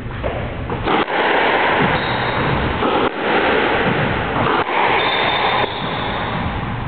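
Squash rally: the ball cracks off rackets and walls three times, over a loud noisy hiss that fills the court. Twice, a short high squeak is heard, the players' shoes on the court floor.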